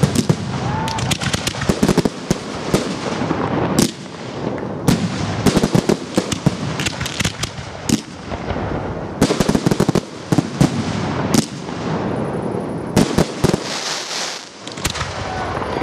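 Large professional fireworks display fired at close range: a rapid, irregular barrage of launch shots and bangs over constant crackle, with a brief hissing burst near the end.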